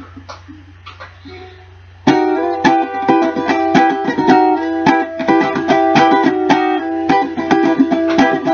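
A cocobolo ukulele is strummed. After a couple of seconds of faint taps and handling, the strumming starts suddenly in a steady rhythm, chords ringing.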